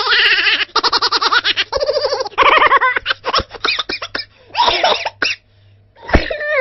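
Laughter sound effect: a person laughing in quick, pulsing bursts that break into shorter, choppier giggles about three seconds in. Just after six seconds there is a low thump, followed by a sound sliding down in pitch.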